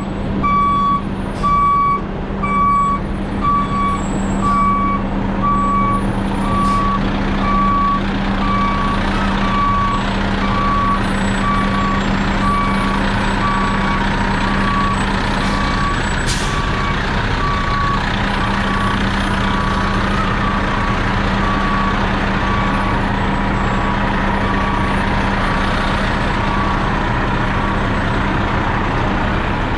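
Backup alarm of a reversing heavy truck beeping steadily about once a second, over the even running of its diesel engine.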